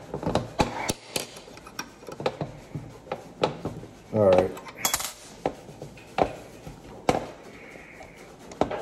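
Irregular sharp metallic clicks and taps from a pistol rear-sight pusher tool as its screw is turned to drift a Glock's rear sight across the slide. A brief murmur of voice comes about four seconds in.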